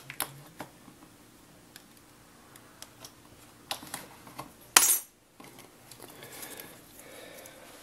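Hands handling small parts on a workbench: scattered light clicks and taps, a louder clatter lasting about half a second just under five seconds in, then softer rustling as the wires are handled. The parts are heat-shrink tubing and plug connectors being readied for soldering onto the ESC's battery leads.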